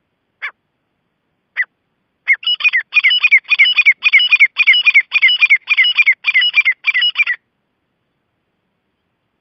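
Gray francolin calling: two single shrill notes, then a fast, loud run of repeated phrases, each note sliding down in pitch, lasting about five seconds before it stops abruptly.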